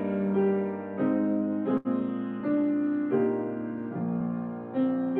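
Slow, gentle piano music, sustained notes and chords changing about once a second, with a very brief break a little under two seconds in.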